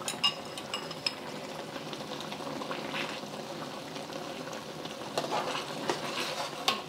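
Tomato and beef stir-fry sauce bubbling in a hot pan with a steady sizzle, while beaten egg is drizzled in, with a few light clicks of a utensil against the pan.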